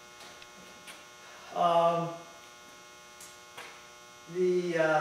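Quiet room tone with a steady electrical mains hum. A man's voice gives a brief drawn-out hesitation sound about a second and a half in, and speech starts again near the end.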